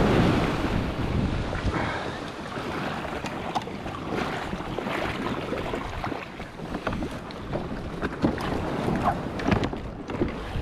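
Surf breaking and washing over the bow of a fishing kayak as it is launched through the shore break, with wind buffeting the microphone. The loudest surge of water comes at the start; after that, water slaps against the hull among scattered small knocks.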